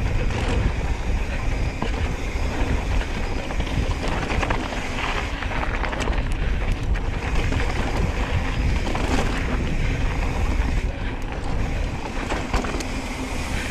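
Wind buffeting the microphone over the rumble of tyres on a dirt trail, with scattered rattles and clicks from a Specialized Stumpjumper mountain bike being ridden.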